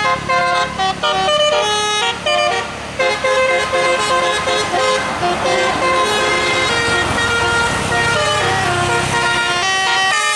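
Bus telolet, a multi-note musical air horn, playing a quick melody of short notes that step up and down in pitch, with a bus engine running underneath.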